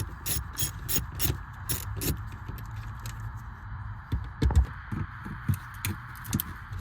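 Irregular metallic clicks and taps of hand tools being worked on the fuel pump fittings, over a steady background hum.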